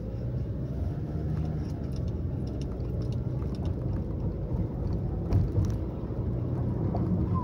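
Road and engine noise inside a moving car's cabin: a steady low rumble, with a couple of light clicks about five seconds in.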